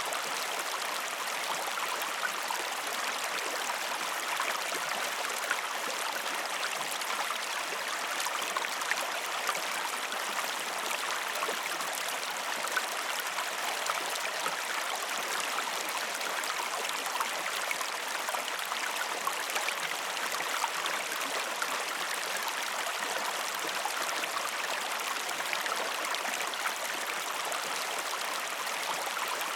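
River water flowing over rocks: a steady babbling rush, dense with small splashes and trickles.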